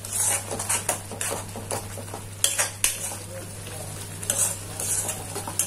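Metal spoon stirring and scraping a thick tomato-and-potato masala around a metal kadhai in quick, irregular strokes, with a steady low hum underneath.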